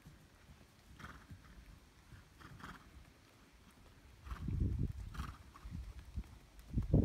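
Hoofbeats of a ridden horse trotting on a sand arena, soft dull thuds that are faint at first and grow louder about four seconds in.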